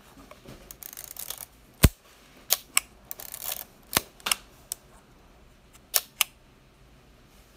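Konica S III rangefinder being worked by hand: the film advance lever is wound with a quick ratcheting, and the leaf shutter fires with a sharp click a little under two seconds in. More winding and a run of mechanical clicks follow, ending with two close clicks near the end.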